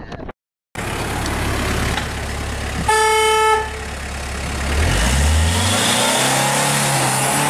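Street traffic with a vehicle horn honking once, a single held blast of just over half a second. After it a white van's engine revs up, rising in pitch, as it drives past close by.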